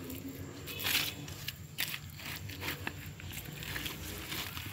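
Wet mud squelching and crackling as it is disturbed around an eel, with irregular clicks and a few short wet bursts, the loudest about a second in.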